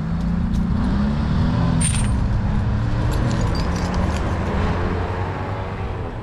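An engine running steadily with a low hum that wavers slightly in pitch, with a few light clicks and a brief high hiss about two seconds in.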